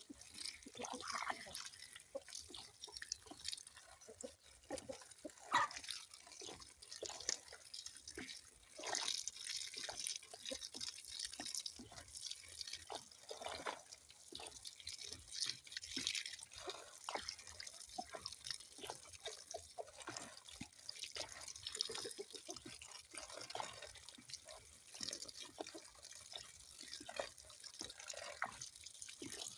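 Water dripping and trickling: many small, irregular drips and splashes, some louder than others.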